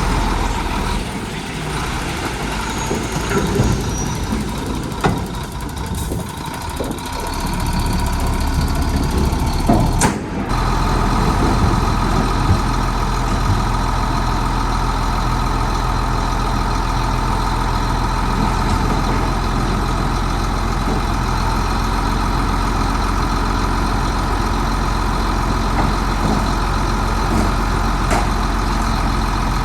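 Heavy diesel engine of earthmoving machinery running steadily, a little weaker and more uneven at first, with a sharp click and a brief dropout about ten seconds in before it runs evenly on.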